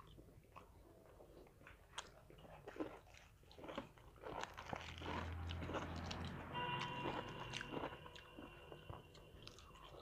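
Close-up eating sounds of two people eating luchi and chicken curry by hand: chewing, lip smacks and small clicks, growing busier in the middle. A steady tone sounds in the background for a second or so past the middle.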